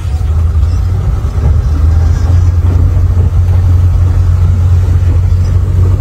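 Car engine running with a steady low drone, heard from inside the cabin while the car moves slowly.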